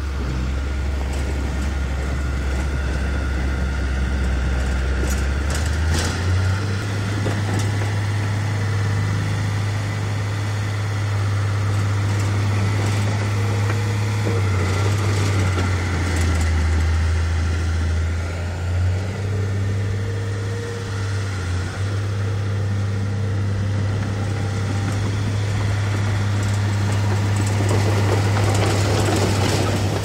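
Heavy diesel engine of earthmoving machinery running without a break, its engine speed rising about six seconds in, dipping for a few seconds around the middle, then picking up again.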